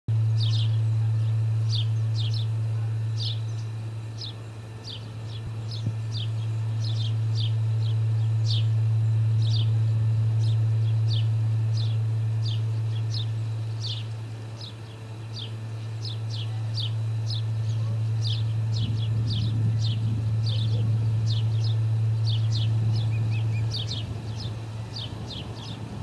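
Young ospreys calling on the nest: a steady run of short whistled chirps, each falling in pitch, about two a second. Under them is a loud, steady low hum that swells and eases.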